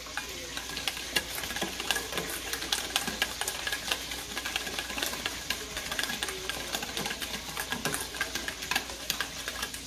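Wire whisk beating a ketchup-based buffalo sauce in a stainless steel bowl: a rapid, uneven run of light clicks as the wires strike the metal.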